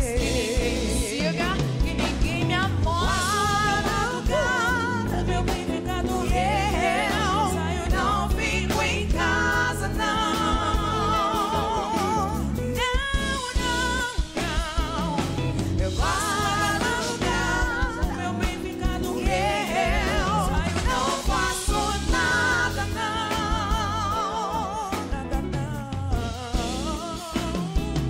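Live soul-pop performance: a vocal group sings with a band, a woman's lead voice on top with wide, wavering vibrato.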